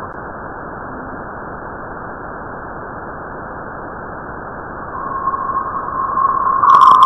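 Voyager plasma wave instrument recording from interstellar space, converted to audio: a steady hiss. About five seconds in, a steady tone fades in and grows loud, and near the end a rapid pulsing chirp joins it.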